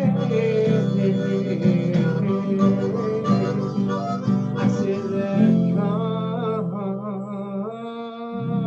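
Diatonic harmonica playing a solo over a strummed acoustic guitar. Toward the end the strumming eases off and the harmonica holds long, wavering notes.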